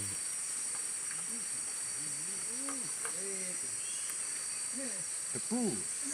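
Steady, high-pitched drone of insects, unbroken throughout. Faint bits of a voice come through about two seconds in and again near the end.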